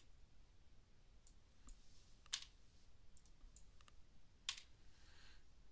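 A handful of faint, sharp clicks from a computer mouse and keyboard while values are set in a software dialog, the two loudest about two and a half and four and a half seconds in, over near-silent room tone.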